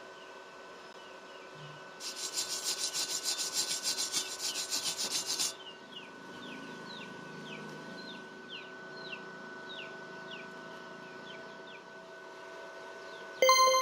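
Rhythmic scraping on a hard surface, about six strokes a second for roughly three and a half seconds. A string of short falling chirps follows, then a sharp ringing clang, like struck metal, right at the end.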